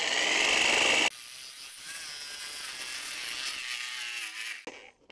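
DeWalt jigsaw cutting a scribed curved notch through a 7/8-inch rough cedar board. Loud for about the first second, then quieter with a wavering pitch as the cut goes on, stopping shortly before the end.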